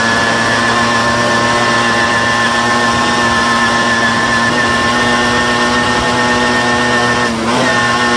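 Tomos moped's two-stroke engine running at steady high revs while riding. About seven seconds in, the revs dip for a moment and climb back.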